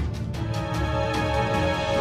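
Background music for a cartoon: sustained chords held over a regular beat.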